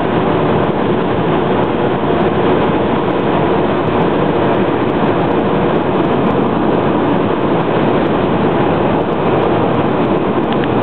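Steady road noise of a car at freeway speed, heard from inside the car: tyre roar and wind at an even level, with no change.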